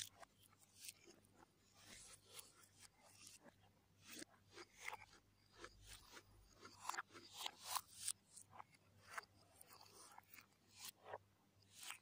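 Faint close-miked eating sounds of fried rice eaten by hand: chewing, lip smacks and light crunching, heard as a string of short, irregular clicks.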